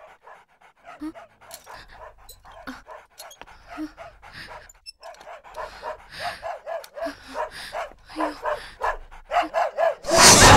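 A small dog making short, repeated sounds, several a second, some of them pitched. Loud music comes in near the end.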